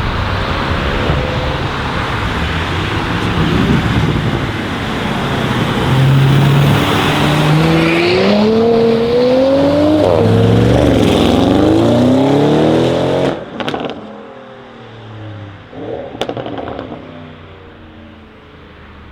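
Audi RS6 C8's twin-turbo 4.0 V8, fitted with catless downpipes and an OPF-delete exhaust, accelerating hard. The revs climb in rising steps through gear changes. About thirteen seconds in the sound drops away sharply, with a few sharp pops as the throttle comes off.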